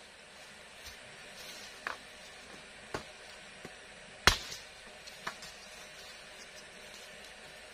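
About six sharp knocks at uneven intervals as bamboo is chopped and struck while being worked, the loudest a little over four seconds in, over a steady forest hiss.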